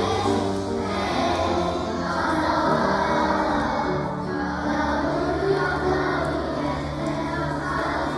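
Music with singing voices over held bass notes.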